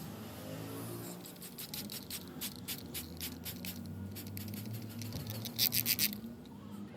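Rhythmic scratching strokes, about three or four a second, louder for a moment near the end, over a low steady hum of tones.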